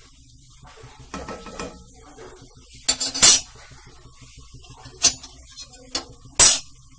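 Metal slotted spoon clinking and scraping against a kadhai while a bhatura deep-fries in hot oil. The sharp metallic clinks come in a scattered string, loudest about three seconds in and again near the end, over a faint frying hiss.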